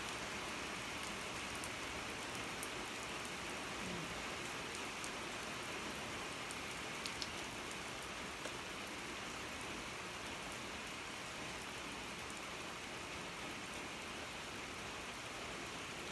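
Heavy rain falling steadily: an even hiss with scattered ticks of drops striking nearby.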